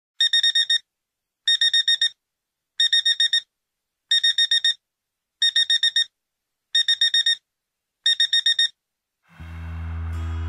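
Digital alarm clock beeping in groups of about five quick, high beeps, one group roughly every 1.3 seconds, seven groups in all. Near the end the beeping stops and music with low held notes fades in.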